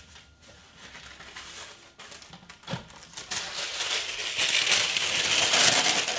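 A used sheet of kitchen wrap being pulled out and unfolded by hand, crinkling loudly from about three seconds in, after a few soft handling knocks.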